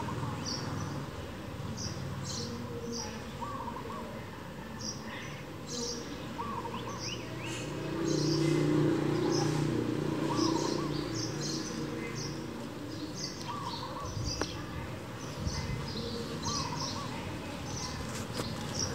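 Outdoor birdsong: many short, high chirps going on all the time, with a lower two-note call coming back every few seconds. A low rumble swells in the middle and then fades.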